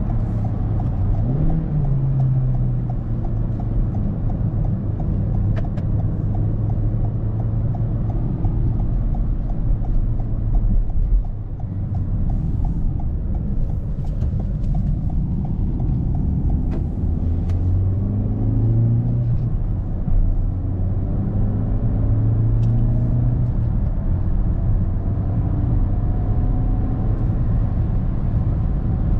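Toyota Corolla's 1.6 Valvematic naturally aspirated four-cylinder petrol engine heard from inside the cabin while driving, over steady tyre and road noise. The engine note climbs several times as the car accelerates, with a short drop in level about a third of the way through.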